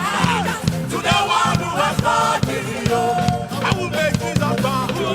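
Live gospel worship band playing with singers: steady bass, regular drum hits and voices singing over it, with crowd noise.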